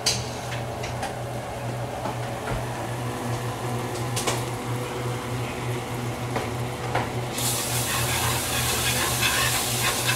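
Butter and flour sizzling in a frying pan over a steady low hum, with a few light clicks in the first half. About seven seconds in, a wire whisk starts stirring the roux and a louder scraping hiss sets in.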